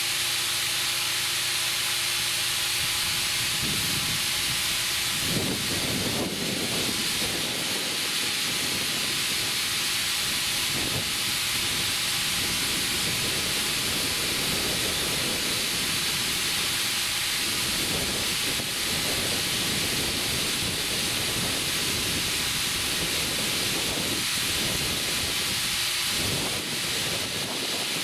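Compressed air hissing steadily into a 20.8R38 tractor inner tube as it inflates.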